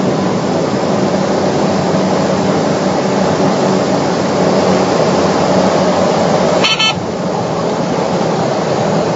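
Cessna 208B Caravan's PT6A turboprop engine and propeller running steadily, heard inside the cockpit on final approach, with a steady low hum. A brief sharp blip breaks the noise about seven seconds in.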